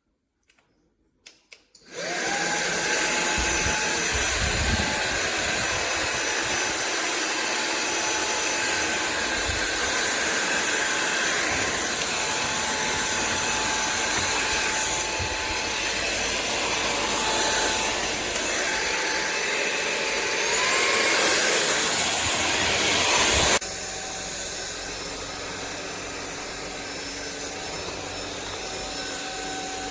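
Sulean X8 cordless stick vacuum cleaner: a few small clicks, then the motor starts about two seconds in and runs steadily with a high whine. Near the end it drops abruptly to a quieter level.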